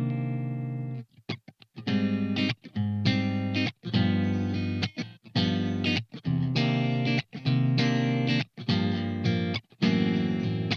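Soloking MT-1 Thinline electric guitar with its Soloking Modern Vintage pickups, played on a clean tone. A held chord rings out for about the first second, then comes a rhythmic run of chords, each muted short, with brief silences between.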